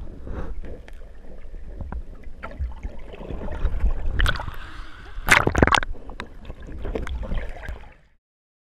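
Muffled underwater noise recorded by a GoPro in its housing: water moving and rumbling against the camera in the current, with scattered knocks and louder splashy bursts about four and five and a half seconds in. The sound cuts out suddenly shortly before the end.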